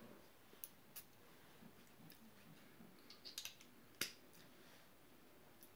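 Near silence broken by a few faint clicks and taps from handling a small glass perfume bottle and its cap, with a small cluster of them about three seconds in and a sharper click about a second later.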